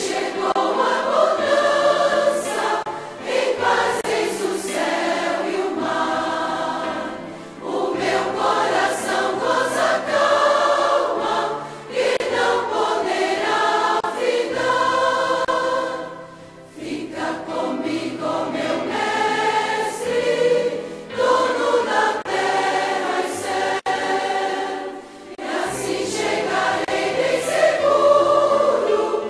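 Background music: a choir singing in phrases a few seconds long over low held accompaniment notes.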